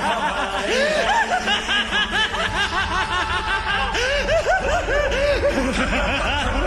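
An anime character's maniacal evil laugh: a long, rapid string of cackling "ha" syllables. A low rumble comes in underneath about four seconds in.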